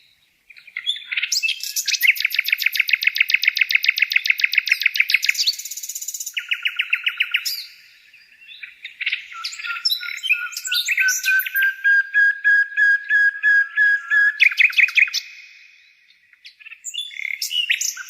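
Songbirds singing in long, rapid trills, several phrases with short pauses between them.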